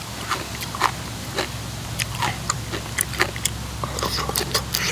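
Close-up mouth sounds of a person chewing a mouthful of papaya salad with pickled shrimp: irregular wet smacks and small crunching clicks, several a second.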